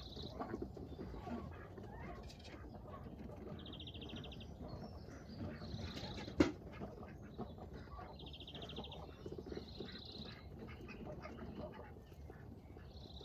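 Ducks chattering softly off-camera while a small songbird repeats a short, high trill every couple of seconds. A single sharp knock comes about six seconds in.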